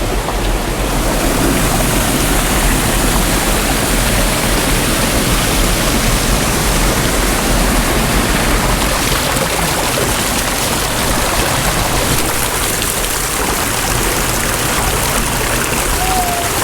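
Creek water rushing steadily over rocks, an even, loud hiss.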